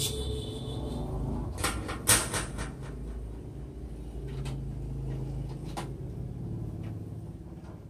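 Clicks and knocks from hands handling stacked audio equipment, loudest in a cluster about two seconds in, with scattered single clicks after, over a steady low hum.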